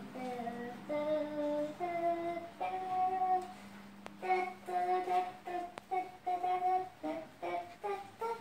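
A young child singing a slow tune in a string of held notes, his own sung accompaniment to a Khon dance procession.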